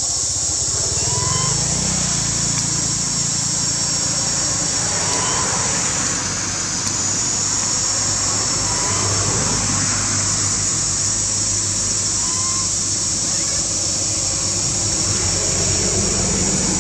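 Steady forest ambience: a continuous high-pitched insect drone over a low, steady motor hum, with a short rising chirp every three to four seconds.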